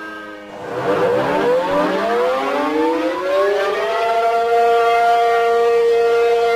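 Siren wailing: it dies away at the low point near the start, then rises in pitch over about three seconds and holds a steady high tone.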